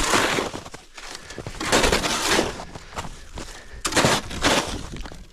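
Three bursts of crunching, rustling noise about a second and a half to two seconds apart.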